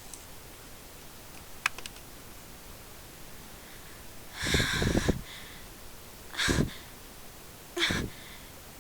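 Three short, sharp breathy bursts from a woman holding back a sneeze. The first, about halfway in, is the longest; two shorter ones follow at about one-second intervals. A faint click comes earlier.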